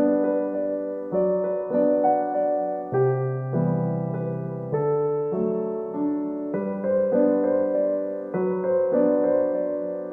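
Background music: a gentle piano or electric piano piece playing sustained chords that change about every second.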